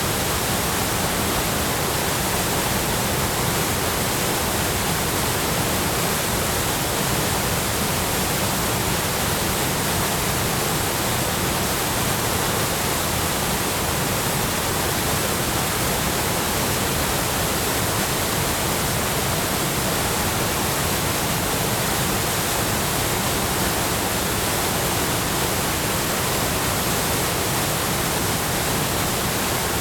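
Chōshi Ōtaki waterfall: a steady, unbroken rush of falling water.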